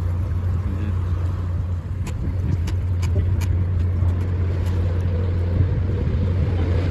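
Narrowboat's diesel engine idling with a steady low hum, with a few light clicks between about two and three and a half seconds in.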